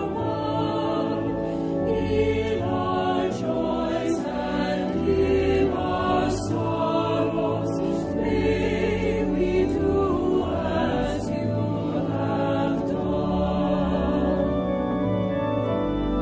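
A choir singing a hymn.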